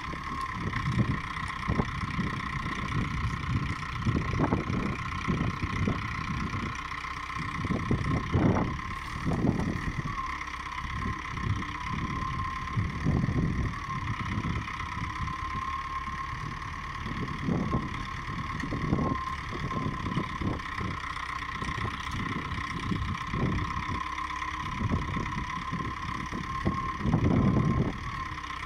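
LKT-81 forestry tractor's diesel engine running steadily while its hydraulic crane works, with a steady high whine over the engine. Irregular low gusts of wind buffet the microphone.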